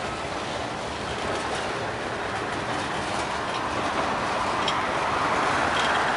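Freight cars rolling past on the rails: a steady rumble of wheels with faint clicks and clatter, growing a little louder near the end.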